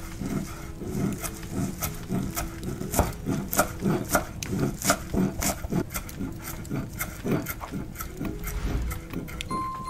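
Chef's knife chopping fresh parsley and dill on an end-grain wooden cutting board: a steady run of knocks of the blade against the wood, about three a second.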